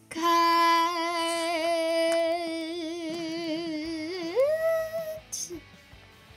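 A voice hums a long held note that starts to waver with vibrato, then slides up about an octave and holds briefly before stopping. A short spoken "Cut!" follows.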